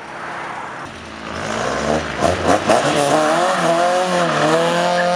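A modified car's engine accelerating away hard, getting louder about a second and a half in, its pitch climbing and then dipping several times as it goes through the gears.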